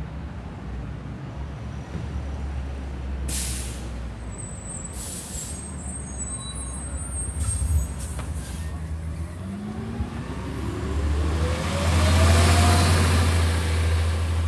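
School bus engine running as the bus stops, with sharp hisses of its air brakes and a high brake squeal. Then the engine revs up with a rising pitch as the bus pulls away, loudest near the end.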